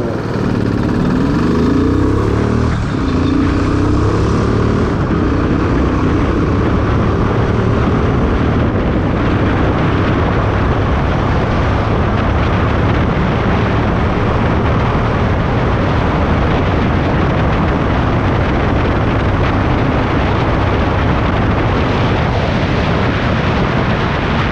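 Royal Enfield Bullet's single-cylinder engine with stock silencer and stock air filter, accelerating hard from a standstill towards 100 km/h. The engine note rises through the gears in the first few seconds, then steady, loud wind rush covers most of the run.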